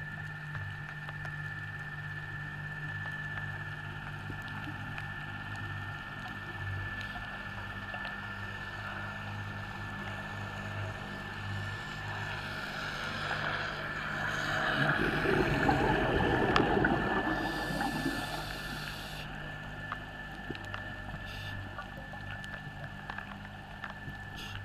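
Underwater sound picked up by a diver's camera: a steady low hum and a thin steady high whine, with a louder noisy rush that swells and fades over several seconds just past the middle.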